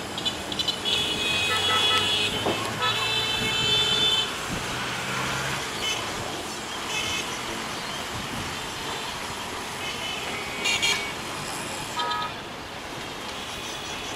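Passenger train running along the line with a steady low hum, while a horn sounds in toots, mostly in the first four seconds and in short blips later on.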